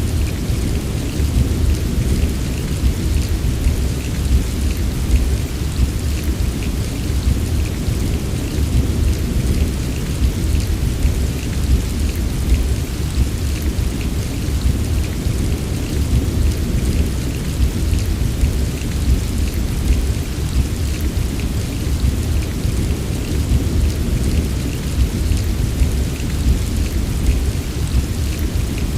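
Heavy rain falling steadily, with fine drop patter over a constant deep low rumble and no single thunderclap.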